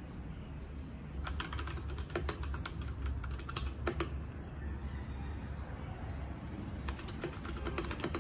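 Typing on a compact mechanical keyboard: a quick run of key clicks starting about a second in for roughly three seconds, a pause, then more clicks near the end.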